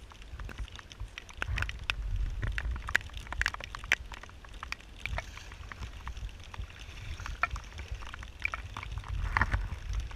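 Extremely heavy rain pouring down onto standing floodwater, with many separate drops ticking sharply close by over a steady hiss and a low rumble.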